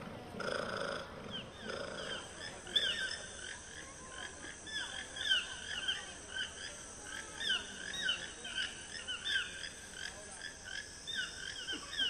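A dense chorus of short chirping animal calls, each a quick pitch glide, overlapping several times a second over a steady high-pitched whine. A few lower calls in the first two seconds give way to the chirping.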